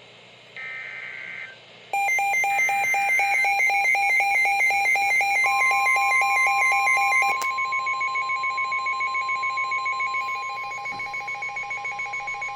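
Two short bursts of NOAA Weather Radio SAME digital header data, the coded header that opens an emergency alert. About two seconds in, rapid, evenly pulsed alert beeping starts. A few seconds later it is joined by the steady 1050 Hz Warning Alarm Tone, which signals that a warning follows.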